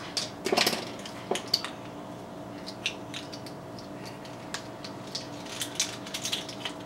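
Small clicks and taps of a measuring spoon and spice jar as garlic powder is measured out and added, scattered irregularly over a faint steady hum.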